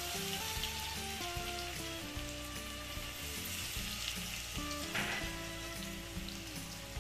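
Hot oil sizzling and crackling in a kadhai as tempering spices fry, with a brief louder hiss about five seconds in. Background music with a melody and a steady bass line plays over it.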